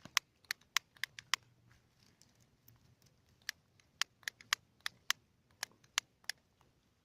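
Kindling crackling as a bonfire starts to catch: irregular sharp snaps and pops, a couple a second with short pauses between.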